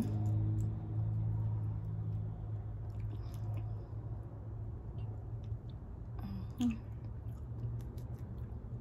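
A person chewing food, with scattered small wet clicks and smacks of the mouth, over a steady low hum.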